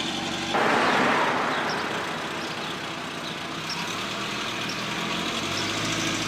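A motor vehicle's engine running at idle, with a loud rush of noise starting about half a second in and fading away over the next second or two.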